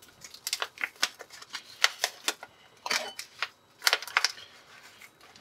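Rock salt being dispensed from its small bottle over a ramen bowl: a run of sharp, irregular clicks and crackles.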